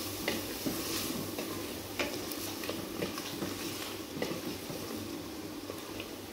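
Wooden spoon stirring mutton and tomato masala as it fries in an aluminium pressure cooker: a low sizzle, with the spoon scraping and knocking against the pot every second or so.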